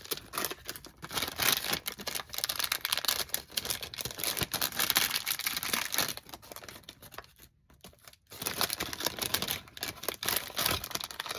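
Packaging crinkling and rustling as a hand rummages through a blind box, with irregular crackles and clicks and a short pause about two-thirds of the way through.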